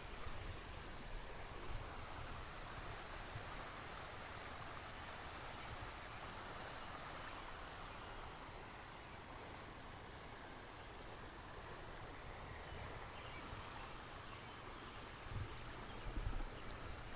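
Floodwater running through a yard as a steady, quiet rushing, with a few low bumps near the end.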